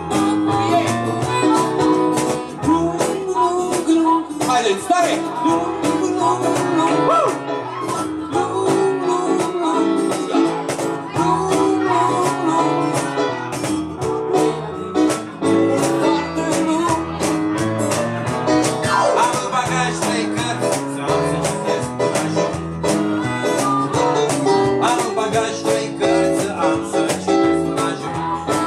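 Small acoustic band playing a song: acoustic guitar and electronic keyboard together, with a steady rhythm.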